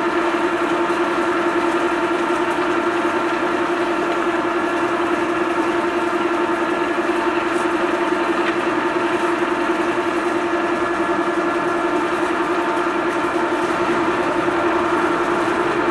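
American engine lathe running with no work in the chuck, the spindle turning at one steady speed: a steady machine whine over a constant mechanical hum.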